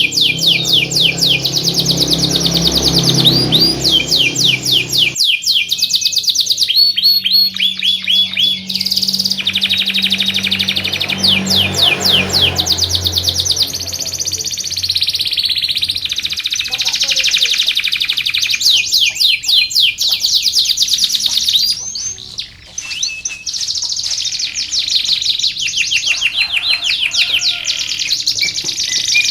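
Domestic canary singing long, fast rolling trills of rapidly repeated high notes, phrase after phrase with only brief breaks.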